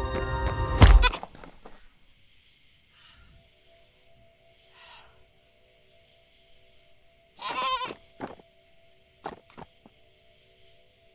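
A music cue ends on a loud hit about a second in, followed by quiet ambience. About seven and a half seconds in, a goat bleats once with a wavering call, and a few short clicks follow.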